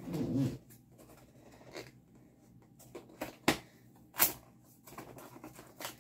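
Hands handling and opening the packaging of a diamond-painting kit: a short low sound right at the start, then scattered sharp crackles and snaps, loudest about three and a half and four seconds in.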